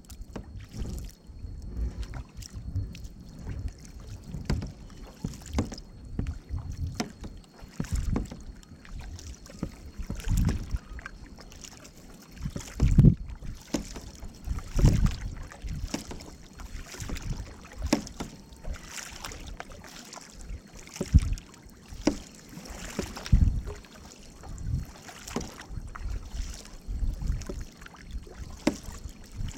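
Canoe paddles dipping and splashing in lake water, one stroke about every two seconds, each with a low thud.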